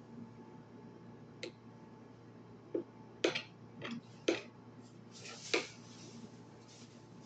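A person eating a snack at close range: six or so sharp clicks and taps, irregularly spaced, with a short rustling, crunching stretch partway through.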